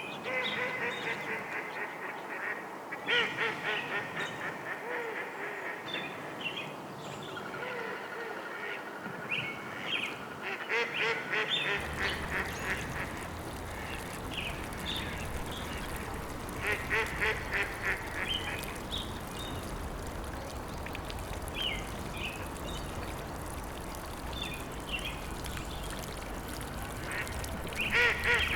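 Ducks quacking in repeated short bursts of calls. A steady low rushing background comes in about twelve seconds in.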